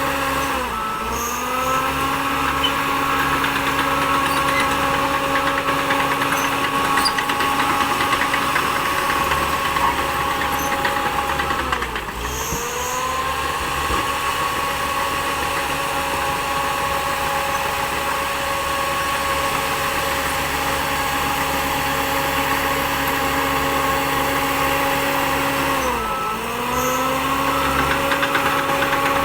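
Shantui DH10B2 mini bulldozer's diesel engine running steadily at working speed. Three times its pitch sags sharply and climbs back within about a second, as the engine comes under load.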